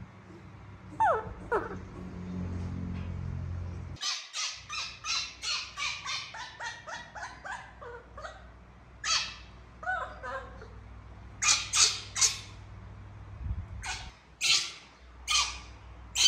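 Young monkey calling: a falling squeal about a second in, then from about four seconds a fast run of short repeated cries, two or three a second, and several louder shrill screeches near the end.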